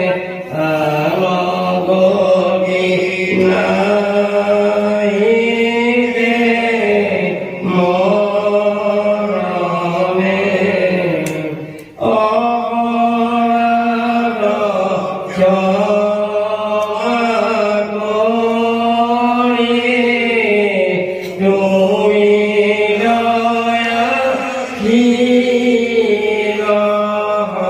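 A man's voice chanting Bhagavata verses in a slow sung recitation, holding long notes that rise and fall, with a brief pause about twelve seconds in.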